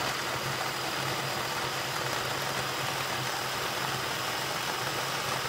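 Electric food processor running steadily, chopping green peppers, scotch bonnets and onions: a constant motor hum with a faint high whine.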